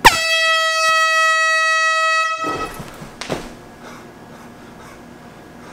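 Canned handheld air horn set off by a motor-driven alarm clock, blasting one loud steady note for about two and a half seconds and then cutting off. A short stretch of rustling with a knock follows.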